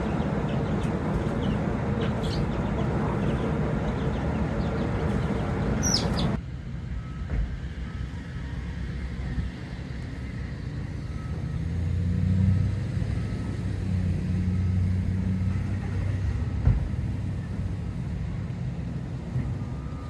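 Outdoor ambience: a dense steady noise with a few short high bird chirps for the first six seconds, then a lower rumble of road traffic, swelling as a vehicle passes about twelve seconds in.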